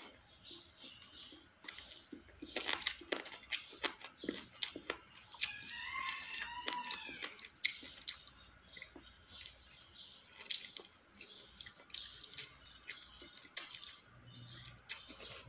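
A person chewing chicken eaten by hand: irregular wet clicks and lip smacks from the mouth.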